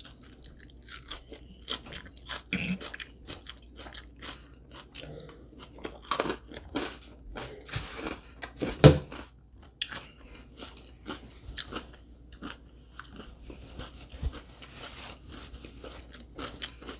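Close-miked chewing and crunching of a mouthful of dressed salad, irregular crunches and mouth clicks, with one sharper crunch about nine seconds in. The salad is a little soggy from too much dressing.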